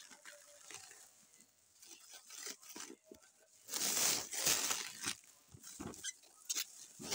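Clear plastic wrapping crinkling and rustling as a hand rubs and turns a wrapped package, in irregular bursts, the loudest about four seconds in and again near the end.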